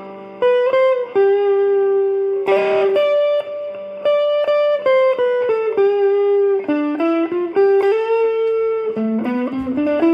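Electric guitar played through a Valeton Dapper Amp Mini amp-modelling pedal into a Fender Champion 20 amp, picking a single-note melody with a new note about every half second and a quick climb up a few notes near the end.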